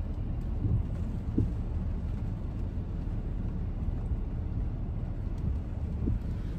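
Steady low rumble inside a car cabin, with a few faint short squeaks or clicks.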